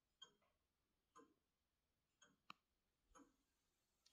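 Grandfather clock ticking faintly, about one tick a second.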